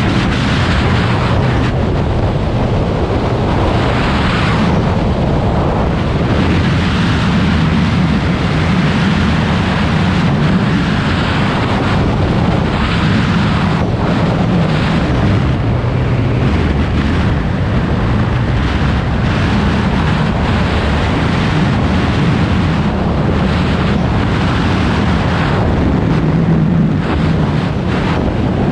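Freefall wind rushing over a skydiver's camera microphone, loud and steady, with a low buffeting rumble.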